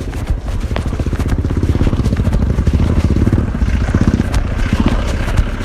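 Motorcycle engine running close by, a fast even putter that grows louder through the middle and eases off near the end.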